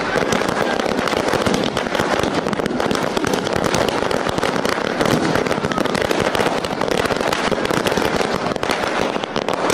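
Ground fireworks going off: spark fountains and small firecrackers crackling densely and without a break.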